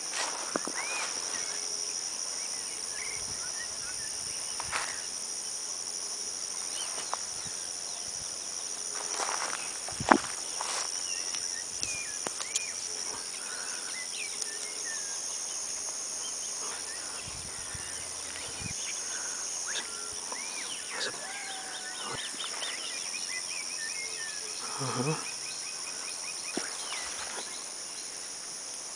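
Outdoor rural ambience: insects buzzing steadily and high-pitched, with scattered bird chirps and calls over it. A few sharp knocks or clicks stand out, the loudest about ten seconds in.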